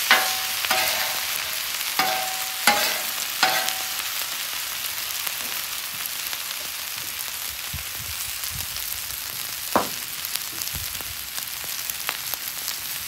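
Fried rice and vegetables sizzling steadily on a hot flat-top griddle. A metal spatula strikes and scrapes the steel plate with sharp ringing clanks, about five in the first four seconds and once more near ten seconds.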